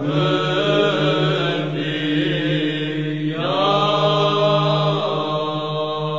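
Orthodox Easter chant: a slow sung melody over a steady held drone note, gliding up into a new phrase about three and a half seconds in.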